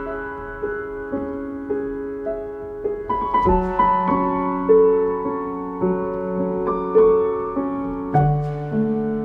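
Slow, calm piano music: sustained notes and chords changing every second or so, with a fuller chord struck about three and a half seconds in and another near the end.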